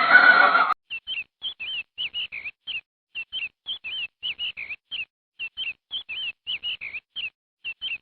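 A brief loud animal call opens, then a small bird chirps over and over: short high chirps, each dipping in pitch, coming in quick pairs and small groups with short gaps between.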